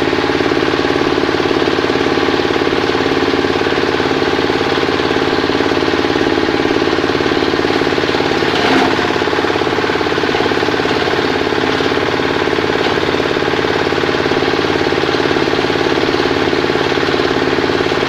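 Organic-waste compost shredder running under load, belt-driven by a small engine with a steady, rapid knocking beat as it chops material. A brief louder crack about halfway through.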